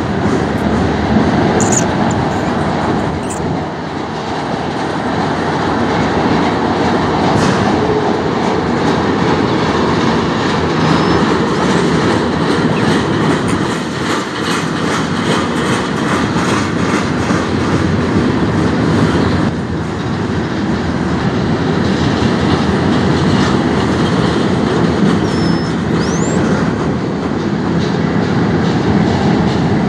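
Freight cars of a mixed manifest train (tank cars, covered hoppers, boxcars) rolling past: steel wheels running on the rails with steady noise and rapid clicking over the rail joints.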